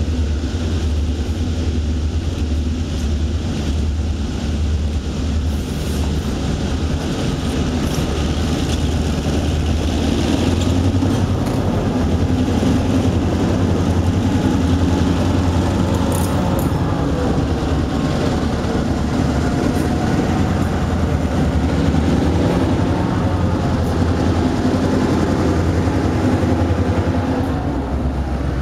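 Freight train's diesel-electric locomotives approaching from a tunnel and passing close by, engines running steadily as the train coasts slowly downgrade, growing louder as they draw level. Covered hopper cars roll past near the end.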